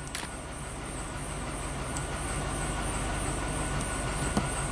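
2004 Chevy Silverado engine idling steadily after start-up.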